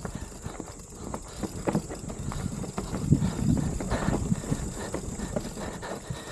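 Mountain bike clattering over a rough, rocky trail: irregular knocks and rattles from the bike and tyres hitting rocks, over a low rumble.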